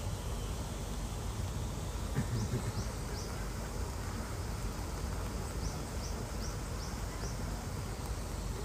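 Outdoor ambience with a steady low hum, over which a small bird gives quick series of short, high, rising chirps, three about three seconds in and five more a few seconds later.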